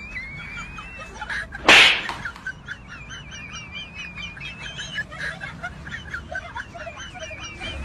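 Small birds chirping and warbling continuously, with a single loud, sudden smack-like hit a little under two seconds in.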